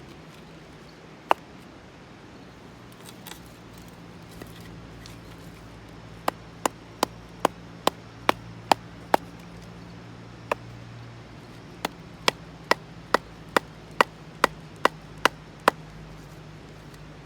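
Sharp knocks of something striking wood: a single blow about a second in, then two steady runs of quick blows at about two and a half a second, the first of eight and the second of ten, with a lone blow between them.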